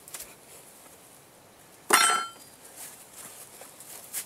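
Wooden beehive parts glued with propolis being pried apart with a hive tool: one sharp crack with a short squeak about two seconds in, with a few light knocks around it.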